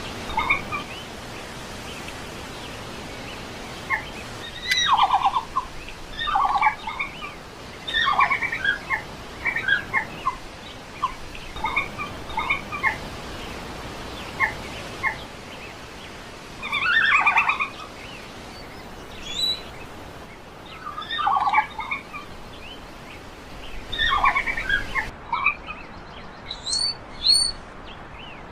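Red panda calling in clusters of short, rapid, high-pitched calls, a burst every couple of seconds, over a steady background hiss. In the last few seconds the hiss drops away and the calls become shorter and higher.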